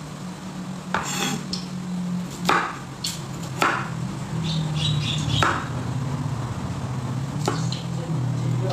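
Kitchen knife chopping food on a wooden cutting board: about half a dozen sharp knocks at uneven intervals, over a low steady hum.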